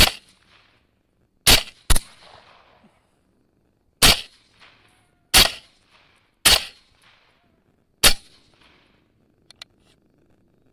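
Seven rifle shots, each a sharp crack followed by a short echoing tail, two of them about half a second apart roughly a second and a half in. Two faint clicks near the end.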